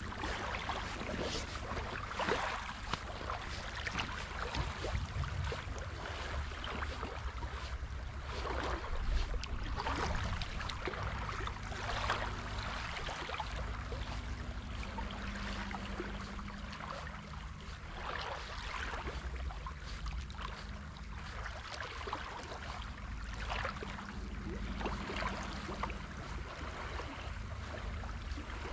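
Small waves lapping and splashing at the shoreline in irregular bursts, over a low wind rumble on the microphone.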